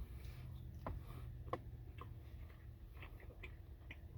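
Quiet, scattered small clicks and ticks, about half a dozen, from eating takeout grilled chicken fingers and sauce.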